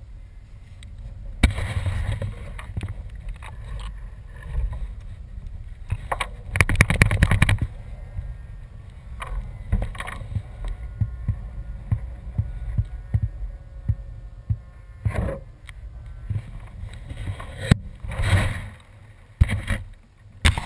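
Handling noise on a camera mounted on a model airplane's fuselage: hands grabbing and rubbing the airframe, with irregular knocks and bumps over a low wind rumble on the microphone. The loudest stretches come about 2, 7 and 18 seconds in.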